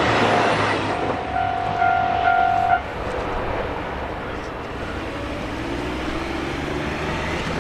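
A train on the Dosan Line runs past a level crossing, its wheel and rail noise loud at first and dropping away about three seconds in. Over it a steady tone sounds for nearly two seconds and cuts off, leaving a lower rumble.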